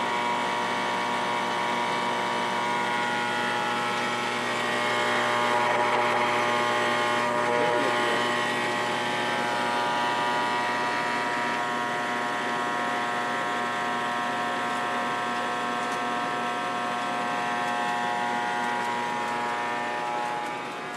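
O-scale Lionel model trains running on the layout: a steady whirring hum of the locomotives' electric motors with wheels rolling on the metal track, swelling a little about five to eight seconds in.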